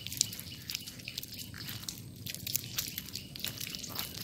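Footsteps squelching and crunching over wet mangrove mud, heard as many irregular soft clicks and crackles.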